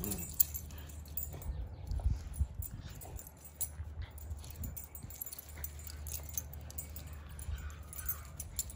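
A Siberian husky and a yellow Labrador puppy tugging at a rope toy, with low play growling and the small clinks of their collar tags jingling.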